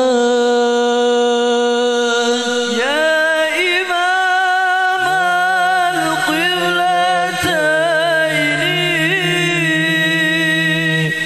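Two male voices singing an Arabic sholawat (Islamic devotional song) into handheld microphones, in long held notes with ornamented melismatic runs. One voice sings alone at first, and a second, lower voice joins about five seconds in.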